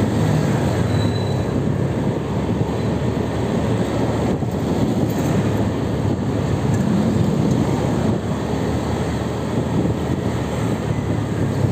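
Steady, loud low rumble of a moving vehicle, with no clear rhythm or distinct events.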